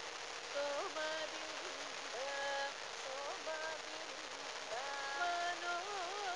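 A Carnatic raga melody: held notes joined by slides and wavering ornaments, starting about half a second in, over a steady hiss from the old broadcast recording.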